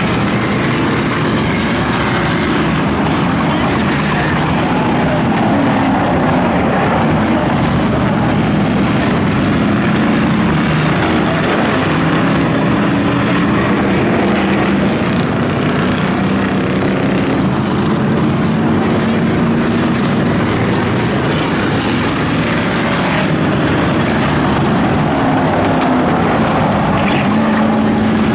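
Several V8 race cars running laps together on a short oval track: a steady, loud mass of engine noise whose pitch keeps rising and falling as cars accelerate and pass.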